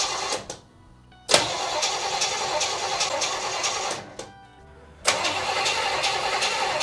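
1965 El Camino engine being cranked over by its starter, in three spells with two short pauses between them, with a steady rhythm of about three pulses a second. It is a start attempt with the choke closed.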